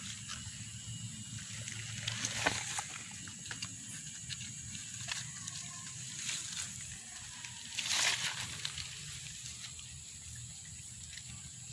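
Scattered rustles and crackles of wet leaf litter and undergrowth as a small turtle is handled and nudged across the ground. The loudest rustle comes about 8 seconds in, over a steady high-pitched background hiss.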